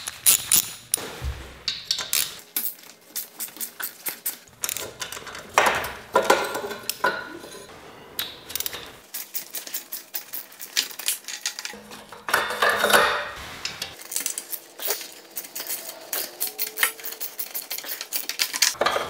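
Socket wrench working the 12 mm exhaust flange bolts loose: runs of rapid ratchet clicking, with metal clinks and scrapes of the tool and hardware.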